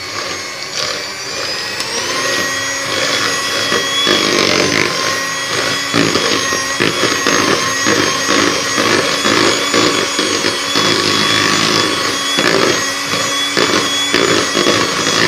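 Electric hand mixer running at low speed: a steady motor whine, rising slightly about two seconds in, with rapid knocking and scraping as the beaters churn thick margarine and hit the plastic bowl.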